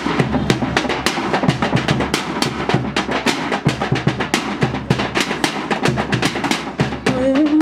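Percussion group drumming a fast, dense rhythm, many strikes a second with deep and sharp hits mixed, running without a break.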